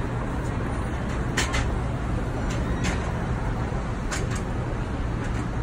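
Steady city street traffic rumble with a low engine hum, broken by a few short sharp clicks.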